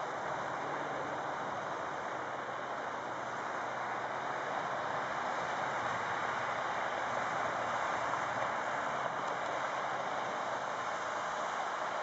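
Volvo articulated dump trucks running on a dirt haul road at a distance: a steady, noisy diesel drone with tyre rumble, growing a little louder past the middle.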